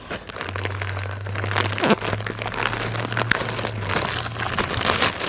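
Plastic packaging bag crinkling and rustling in a dense run of crackles as it is handled and pulled open.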